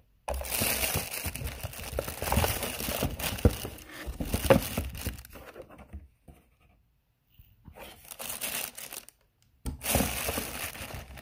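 Plastic packaging wrap crinkling and rustling around a handheld garment steamer as it is handled in its cardboard box, in three bursts: a long one of about six seconds, then two shorter ones, with small clicks and knocks mixed in.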